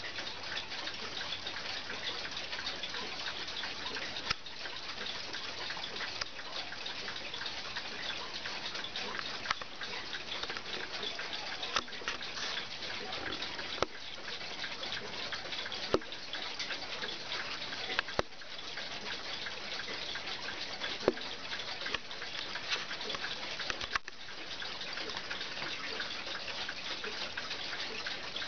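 Kienzle travel alarm clock's alarm ringing: a fast, continuous rattling buzz, with a few sharper clicks here and there.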